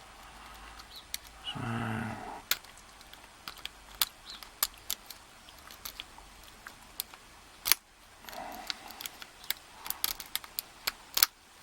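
A lock pick raking the pin tumblers of a Squire Stronglock No.39 padlock under a tension wrench: irregular metallic scraping with sharp clicks, several a second, as the pins are worked.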